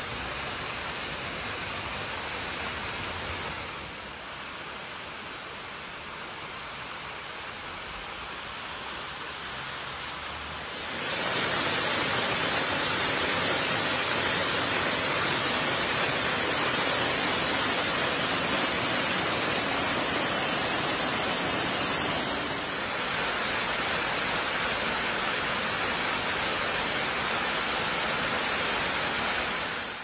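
Waterfall: a steady rush of falling water. It grows clearly louder and brighter about eleven seconds in and shifts slightly again about twenty-two seconds in.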